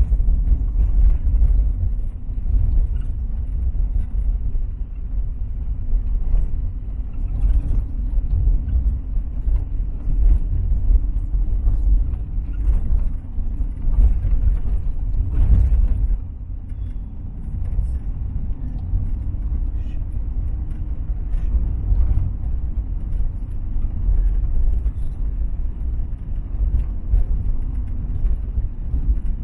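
Road vehicle driving: a steady low rumble of engine and road noise, with a few sharp knocks and a slightly quieter stretch in the second half.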